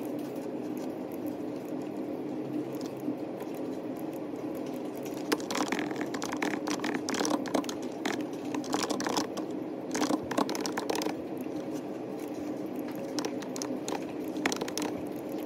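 Typing on a computer keyboard: runs of quick key clicks, starting about five seconds in and going on for several seconds, then again briefly near the end, over a steady low hum.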